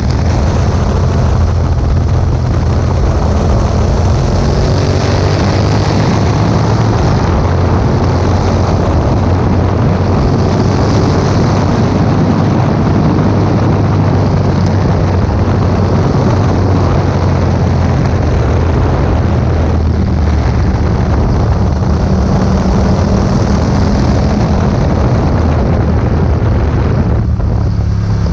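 Yamaha MT-07's parallel-twin engine with an Akrapovic exhaust, running steadily while riding, with wind noise on the microphone.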